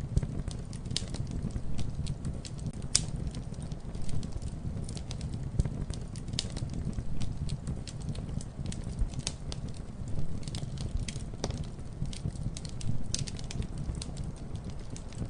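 Campfire crackling: irregular sharp pops and snaps of burning wood over a steady low rumble of the flames.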